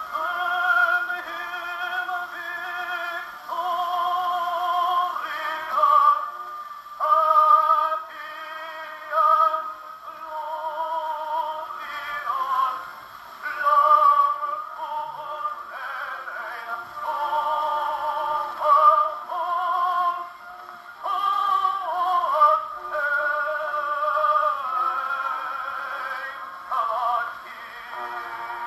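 An early disc record playing acoustically through a Berliner gramophone's metal horn: a singing voice with strong vibrato in short phrases. The sound is thin and nasal with no bass, over faint surface hiss.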